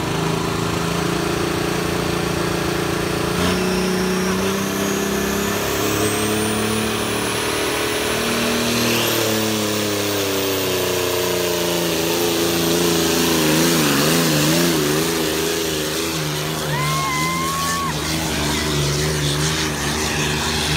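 Diesel engine of a John Deere pulling tractor working hard under load, with a thin high whistle climbing during the first half. About two-thirds in, the engine's pitch wavers up and down rapidly.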